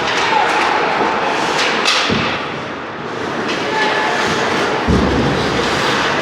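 Ice hockey game in a rink: steady noise from the ice and the stands, with two heavy thuds, about two seconds and five seconds in.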